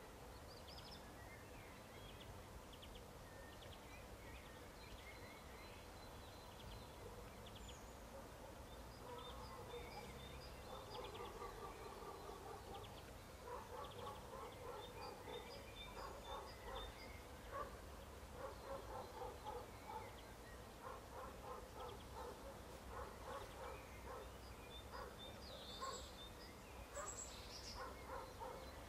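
Faint animal calls: rapid pulsing runs of repeated notes that start about a third of the way in and keep going, over high chirping of small birds.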